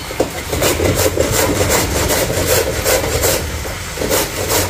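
A carrot being peeled by hand, the blade scraping its skin in quick repeated strokes, about two or three a second, over a steady low hum.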